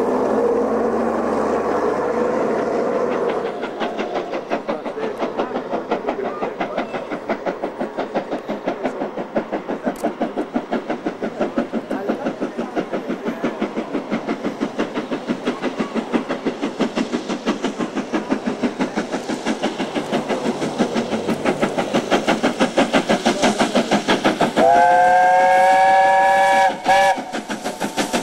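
BR Standard Class 7 'Britannia' steam locomotive 70000, a two-cylinder Pacific, working hard toward the listener with a fast, even exhaust beat that grows louder as it nears. Near the end its whistle sounds for about two seconds, dipping slightly in pitch, then gives a brief second toot.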